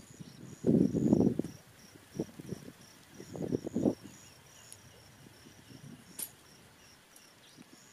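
Insect chirping in a steady run of short high-pitched pulses, about three a second. Low rustling noises come about a second in and again near four seconds in, and are the loudest part.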